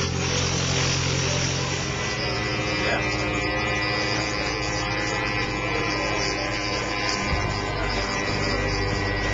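Light aircraft's piston engine and propeller running steadily, its note shifting about two seconds in and again near the end.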